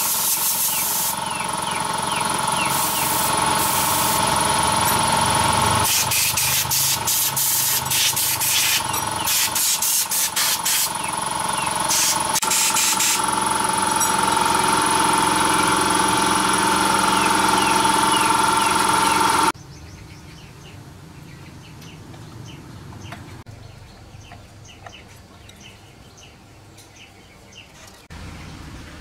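Compressed-air equipment: a steady hiss of air spray over a running air compressor, with short breaks in the spraying, cutting off abruptly about two-thirds of the way through. Quiet outdoor background with faint bird chirps follows.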